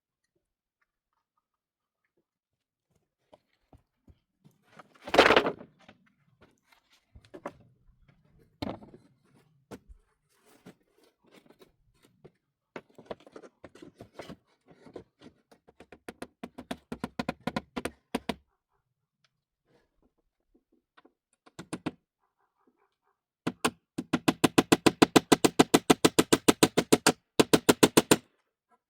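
Hand-tool work on building materials: one heavy thunk about five seconds in, then scattered knocks and scraping strokes. Near the end comes a fast, even run of strokes, about five a second.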